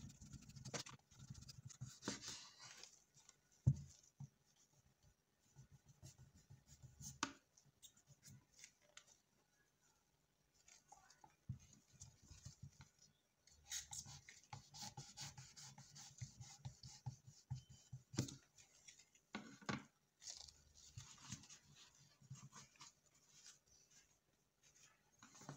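Kitchen knife shaving the skin off a breadfruit: faint, irregular scraping and cutting with occasional light knocks on the cutting board, broken by short quiet pauses.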